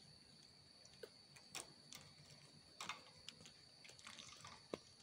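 Near silence with about six faint, scattered light clicks and taps, from baby monkeys handling a plastic toy wheel and ball on the wire floor of their cage. A faint steady high whine runs underneath.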